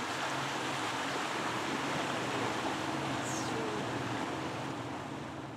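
Motorboat under way: a steady rush of wind and water with the engine's low hum underneath, fading out near the end.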